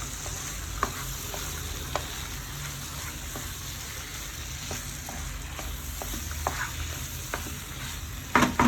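Chicken pieces sizzling as they fry in a pan while a spatula stirs them, tapping and scraping the pan every second or so, with a few louder knocks near the end.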